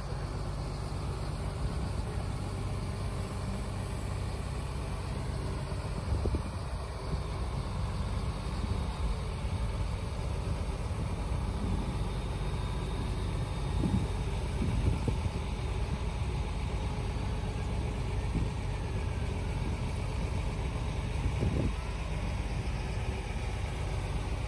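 Truck-mounted mobile crane's diesel engine running steadily as it lowers a narrowboat on slings.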